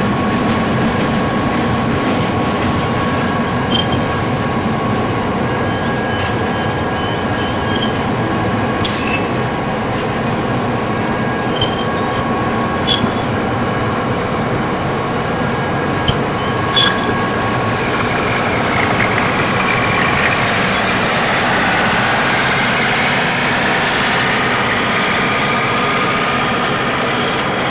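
Double-stack container well cars of a freight train rolling past at close range: a steady rumble of steel wheels on rail, with a few sharp clicks about 9 and 17 seconds in.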